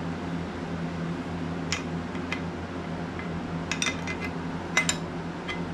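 Steel wrenches clinking against a hydraulic hose fitting while a pressure-gauge adapter is tightened: scattered sharp metallic clinks, a quick cluster in the middle and the loudest near the end, over a steady low hum.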